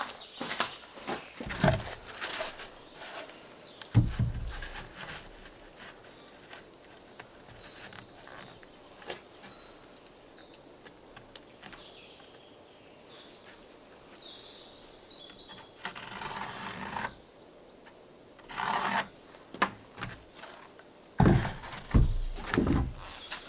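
Wooden boards being dropped and laid down on a wooden deck: scattered knocks, a heavy thud about four seconds in, and a cluster of thuds near the end.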